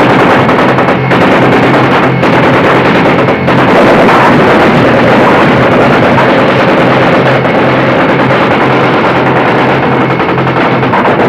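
Sustained machine-gun fire from Navy river patrol boats: a loud, dense, unbroken din. The boats' engines run at speed underneath it.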